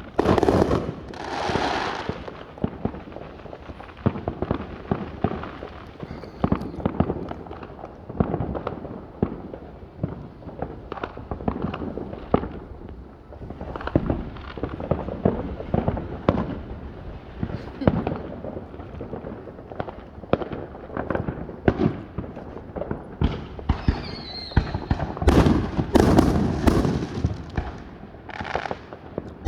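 Neighbourhood fireworks going off in a string of bangs and crackles, with louder, denser volleys near the start and again about 25 seconds in.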